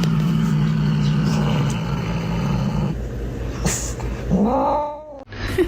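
A cat's low, steady growl lasting about three seconds, followed near the end by a short meow that rises in pitch.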